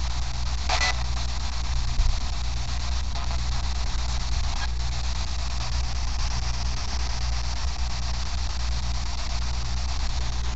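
Steady low hum with an even hiss over it, and a short breathy noise about a second in.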